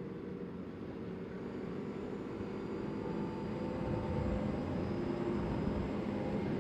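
CFMoto CForce 800 ATV's V-twin engine running under way, getting louder over the first few seconds as it picks up speed, then holding steady.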